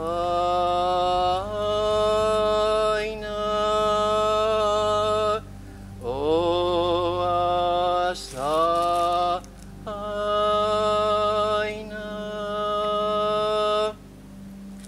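A solo voice chanting slow, long-held notes in four phrases, each phrase sliding up into its note and some notes wavering, over a steady low drone.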